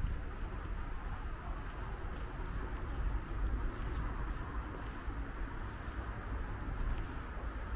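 Steady outdoor background noise: a low, uneven rumble with a soft hiss above it, from distant road traffic and wind.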